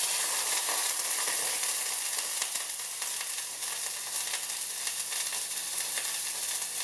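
Water poured from a measuring cup into a hot pot, sizzling: a sudden, loud hiss that sets in at once and carries on as a steady crackling sizzle, fading slightly after the first second or so.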